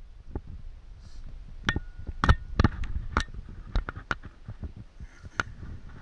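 Irregular sharp knocks and clicks carried through the handlebar camera mount of a parked dirt bike, about fifteen in all, with one brief squeak about two seconds in and a faint low rumble underneath. The engine is not running.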